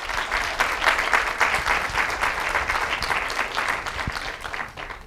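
Audience applauding: many hands clapping together, rising quickly at the start and dying away near the end.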